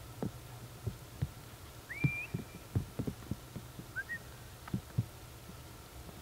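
Diesel heater running at its lower setting with a steady low hum, with irregular soft knocks throughout and two short whistled chirps about two and four seconds in.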